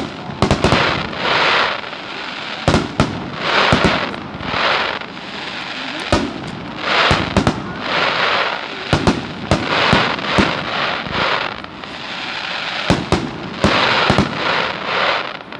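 Aerial fireworks going off in quick succession: many sharp bangs of bursting shells, mixed with repeated swells of crackling hiss that each last about half a second.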